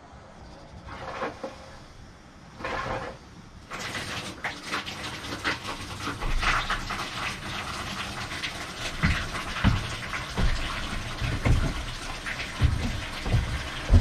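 Water from a garden hose rushing into the inboard engine's water intake and spilling into the engine bay, with a couple of short spurts first and a steady splashing flow from about four seconds in. Low thumps join in during the second half.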